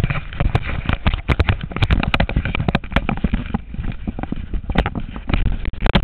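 Handling noise from an action camera rubbing and knocking against a riding jacket: irregular rustling, scraping and clicks over a low rumble.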